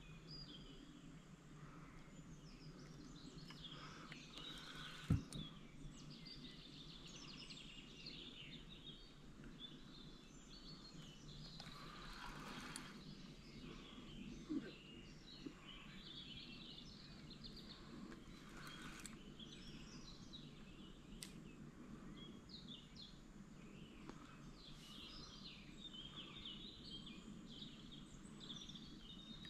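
Faint birdsong, many small birds chirping and singing over a lake, with one sharp knock about five seconds in and a smaller one around the middle.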